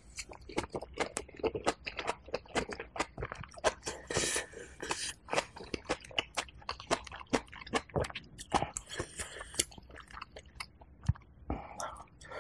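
Close-miked chewing of a mouthful of napa cabbage kimchi: a rapid, uneven run of crunches and wet mouth clicks.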